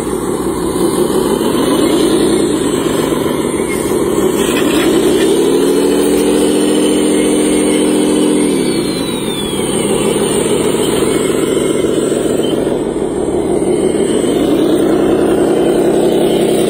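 Radio-controlled toy wheel loader's motors running with a steady whir that climbs in pitch, holds and drops back as it works: briefly about two seconds in, for several seconds in the middle, and again near the end.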